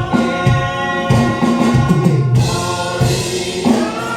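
Congregation and worship band singing a gospel worship song, voices holding a long sung note over instrumental accompaniment with a steady drum beat.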